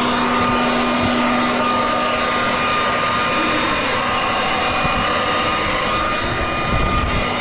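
Large vacuum cleaner with a built-in shredder running at full power, a steady whine over a loud rush of air, as it sucks up wasps from a nest.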